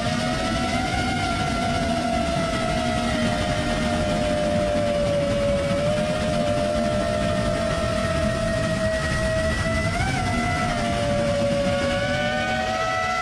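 FPV quadcopter's brushless motors and propellers whining steadily in fast low flight, heard from the camera on the drone with a rush of wind noise. The pitch wavers slightly and jumps up briefly about ten seconds in.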